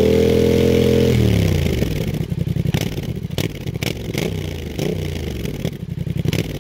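Yamaha MT-07 parallel-twin engine through a Shark Street GP aftermarket exhaust, held at high revs and then falling sharply when the throttle closes about a second in. On the overrun that follows, the exhaust crackles and pops with a scatter of sharp cracks over a lower engine note.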